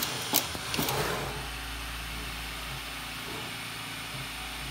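Desktop pick-and-place machine running a placement sequence: a few sharp mechanical clicks in the first second, then a steady machine hum.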